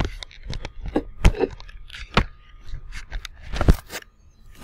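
Handling noise: irregular sharp knocks and clicks with rustling in between, several of the knocks loud.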